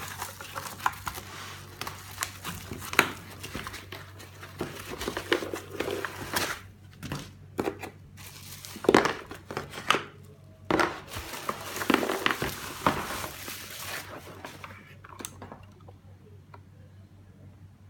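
Packaging crinkling and rustling as it is handled during an unboxing, with scattered sharp clicks and knocks; it dies down about four seconds before the end.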